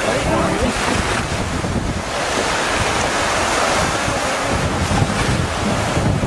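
Surf washing onto the shore, with wind buffeting the microphone.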